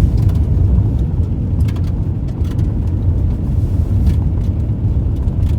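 A car driving, heard from inside the cabin: a steady low rumble of engine and road, with light clicks and rattles now and then.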